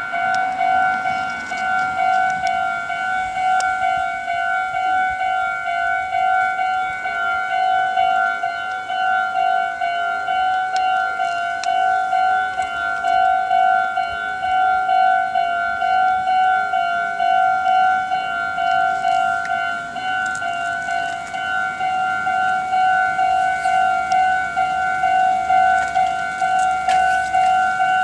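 Japanese railway level-crossing warning bell ringing over and over in a rapid, even beat, each strike a bright electronic 'kan' tone.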